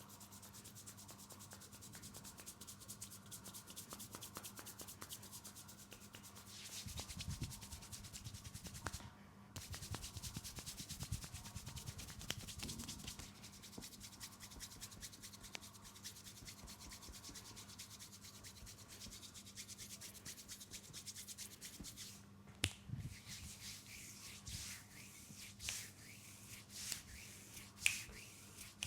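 Hands rubbing and kneading oiled skin during a leg massage, a dense slick rubbing that grows louder for several seconds about a quarter of the way in. Near the end come a few short sharp sounds.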